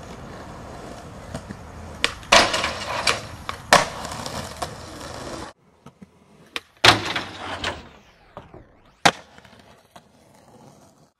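Skateboard wheels rolling on concrete, with several sharp clacks of the board hitting the ground. The rolling cuts off suddenly about five and a half seconds in. Scattered clacks follow, the loudest about seven seconds in.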